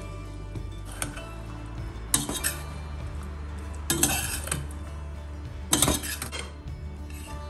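Metal utensil clanking and scraping against a stainless steel pot as cooked rigatoni is stirred into its sauce. Five sharp clanks come about every second and a half, the loudest about four and six seconds in.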